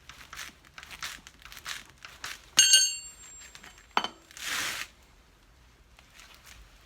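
Hand work on a handcart tyre: a run of short scraping and rubbing strokes, then a sharp metallic clang that rings for a moment, a second knock and a brief hiss, with quieter handling noise after.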